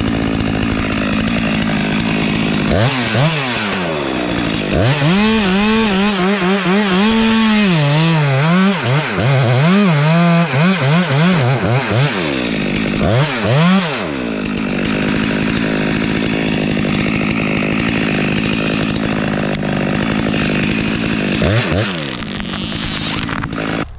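Stihl MS462 chainsaw running at high revs, its engine pitch dipping and climbing again and again for several seconds in the middle, then holding steady before falling away near the end.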